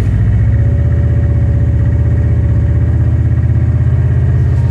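Subaru Impreza WRX STI's turbocharged flat-four boxer engine idling steadily just after start-up, a loud low pulsing rumble.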